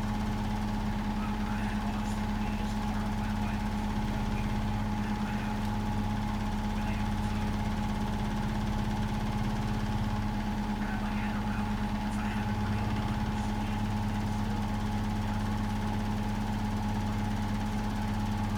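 Hotpoint WMFUG 942 washing machine running steadily on its Cotton 60 programme, a constant-pitch motor hum over a low rumble.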